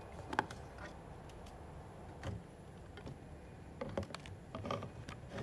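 Scattered clicks and light knocks of hands handling portable radios and pressing their buttons: one about half a second in, one near the middle and a small cluster near the end. Under them is a faint steady hiss.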